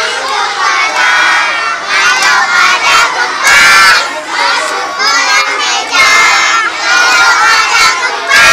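A crowd of children shouting and cheering together, many high voices at once, with louder bursts about three and a half seconds in and again at the end.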